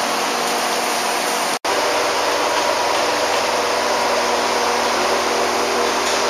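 Steady hum and running noise inside a Konan Railway 7000 series (ex-Tokyu 7000) electric train car, with several even tones and no rise or fall in pitch. It cuts out for an instant about a second and a half in.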